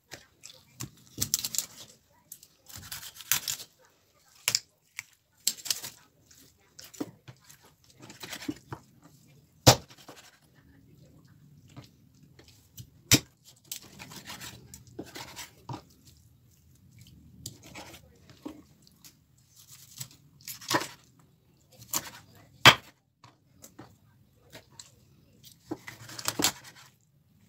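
Kitchen knife cutting up a raw chicken on a wooden cutting board: scraping and tearing of meat and skin, with several sharp knocks of the blade striking the board.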